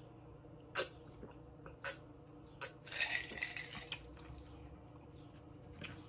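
Eating sounds while chewing ribs: about half a dozen sharp mouth smacks and clicks, roughly a second apart, with a short sucking hiss about three seconds in.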